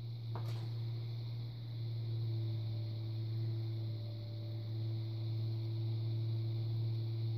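Electric potter's wheel motor running with a steady hum while a cup spins on the wheel head.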